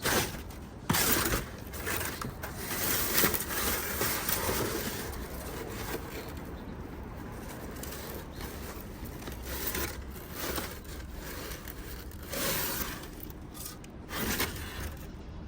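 Rummaging through trash in a dumpster: things being pushed aside and pulled out, scraping, rustling and knocking in irregular bursts.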